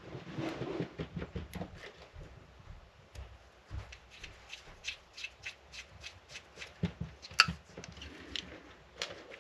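Hands working on a small model locomotive: a brief rustle, then a run of light clicks and taps of small parts being handled and fitted, with one sharper click about seven seconds in.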